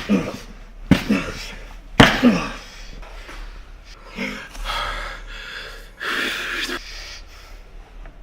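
A person grunting and gasping, with three sharp knocks in the first two seconds, then heavy, hissing breaths.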